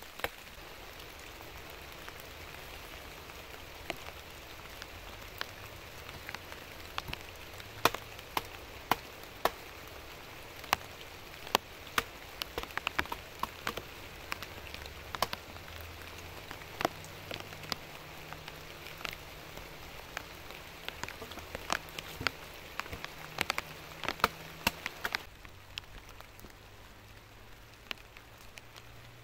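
Rain falling steadily on leaf litter and wood: an even hiss dotted with frequent sharp ticks of drops striking close by, thinning out near the end.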